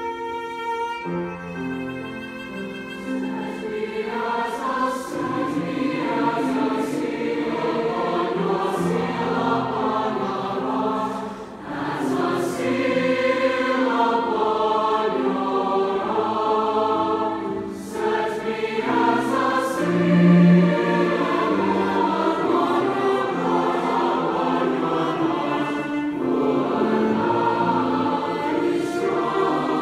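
Large choir singing with a cello accompanying, in phrases with short breaks about 11 and 18 seconds in.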